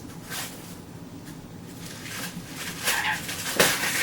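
Packaging being handled while a packed part is pulled from the box: a few short rustles and scrapes, the loudest near the end.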